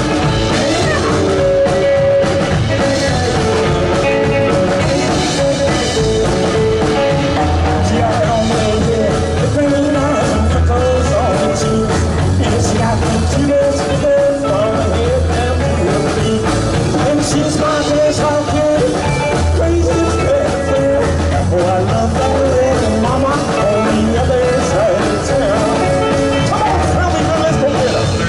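A rock band playing live, with guitar, bass and drums and a singing voice. The music is loud and continuous, over a bass line that moves in steps.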